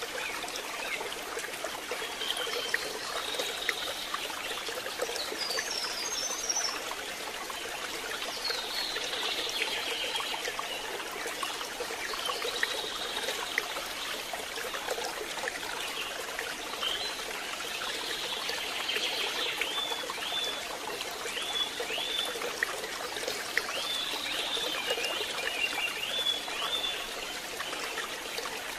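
Steady rain, an even hiss of falling water. Short, high, down-sweeping chirps come over it here and there, in quick clusters in the second half.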